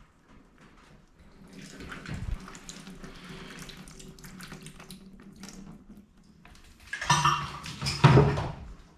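Fluid pouring and splashing out of a Toyota 1JZ engine as it is turned over on its stand, followed about seven seconds in by a loud burst of clattering and knocking.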